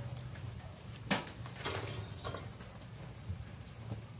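A few light clicks and taps as a small transformer and its soldered wire leads are handled on a wooden bench, over a steady low hum.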